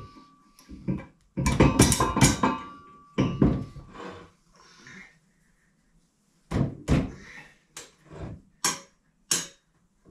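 Steel parts of a Ballard Super Jack mower jack clanking and knocking as its handle and carriage bolts are fitted by hand. There is a quick cluster of knocks about a second and a half in, a faint metallic ring under the first few seconds, and then a string of separate sharp knocks from about six and a half seconds on.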